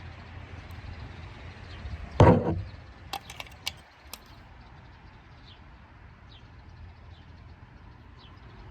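Handling noise from a toy cap gun: one loud thump about two seconds in, then a few sharp clicks, over a low steady rumble. Faint bird chirps come through later.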